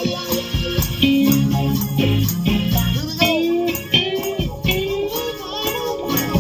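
A band playing live: plucked-string and bass notes under a steadily shaken tambourine, with a voice singing through the middle of the passage.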